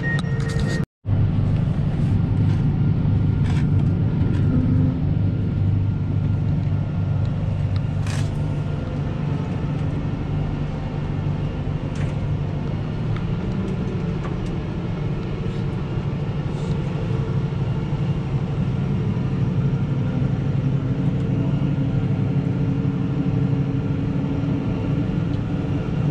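Fendt tractor engine running steadily under load, heard from inside the cab, with a low rumble and a few sharp clicks.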